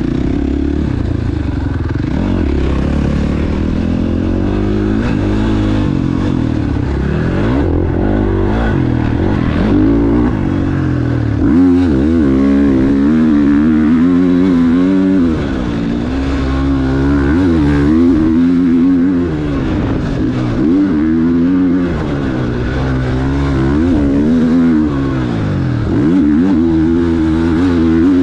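KTM 450 SX-F four-stroke single-cylinder motocross engine at race speed. It revs up and drops back again and again as the rider opens and rolls off the throttle through the turns, heard close up from the bike's onboard camera.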